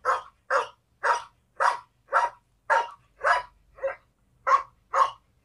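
Recorded dog barks played from a smartphone's speaker by a dog translator app, as its 'translation' of a spoken phrase. It is a regular string of short single barks, about two a second, that stops shortly before the end.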